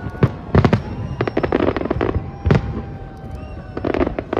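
Fireworks going off: a string of sharp bangs and clusters of rapid crackling, loudest about half a second in and again at about two and a half seconds. Thin whistling tones glide slowly downward through the bangs.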